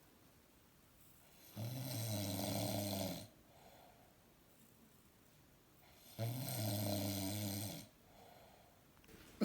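A man snoring: two loud, low snores about four and a half seconds apart, each lasting about a second and a half, with a softer breath after each.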